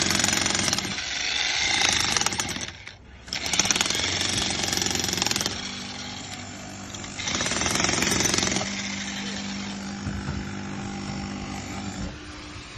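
Electric welding arc crackling on iron in several loud runs, with a short break about three seconds in. The crackle is weaker in the second half, with a steady low hum beneath it.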